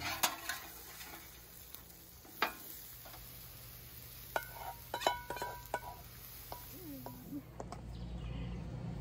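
Food frying on a flat-top griddle, with a faint sizzle and a scattering of sharp clinks and scrapes of metal utensils, a few of them ringing briefly around the middle. Near the end the sizzle gives way to a low outdoor rumble.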